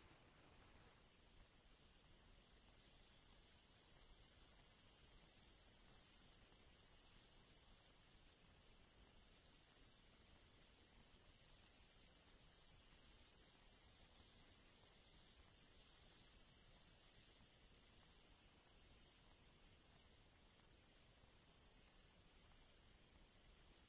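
Pneumatic hopper spray gun spraying acrylic plaster onto a wall: a steady, high-pitched hiss of compressed air blowing the plaster out of the nozzle.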